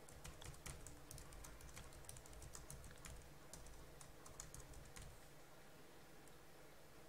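Faint typing on a computer keyboard: a run of quick key clicks that thins out after about five seconds.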